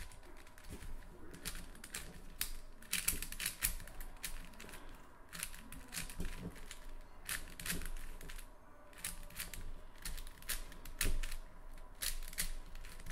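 Plastic 4x4x4 puzzle cube's layers being turned quickly by hand: a run of irregular clicks and clacks in quick clusters.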